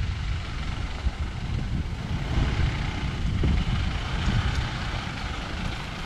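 A vehicle driving along, heard as a low, uneven rumble with a steady hiss over it.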